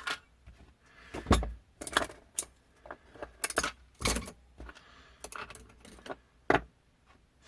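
Small metal parts and tools clinking and clacking as they are handled on a workbench: a scattering of sharp clicks, two of them with a dull thump.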